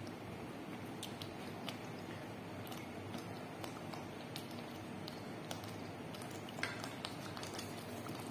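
Thick hot alamang (shrimp paste) sauce simmering in a pot, its bubbles popping in scattered small pops over a steady hiss, one pop a little louder about six and a half seconds in.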